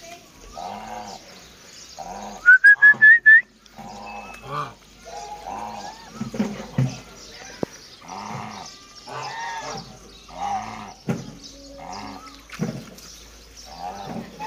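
Lion-head geese honking repeatedly, one call every second or so. About two and a half seconds in comes a quick run of five loud, higher honks rising in pitch, the loudest sound here.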